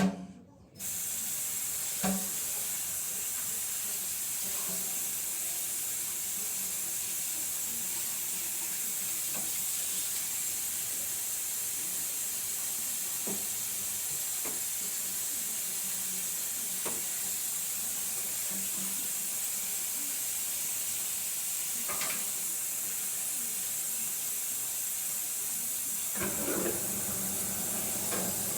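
Food sizzling in a hot pan: a steady, high hiss that starts abruptly about a second in, right after a short knock, with a few faint clicks over it.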